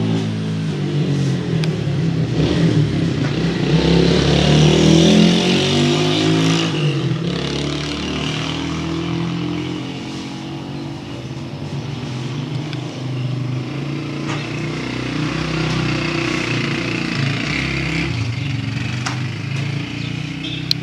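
An engine running loudly, its pitch rising and falling.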